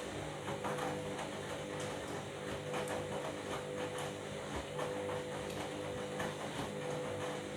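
Washing machine running: a steady motor hum with a whine that comes and goes every second or two, under frequent irregular clicks and knocks from the turning drum and its load.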